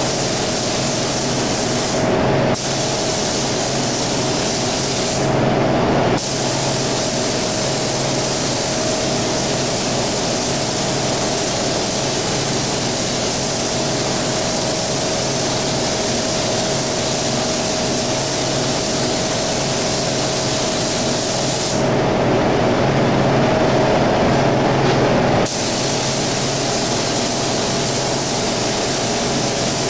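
Gravity-feed spray gun hissing steadily as it sprays single-stage paint, with the trigger let off briefly about two seconds in, again around five seconds in, and for a few seconds near the end. A steady machine hum runs underneath throughout.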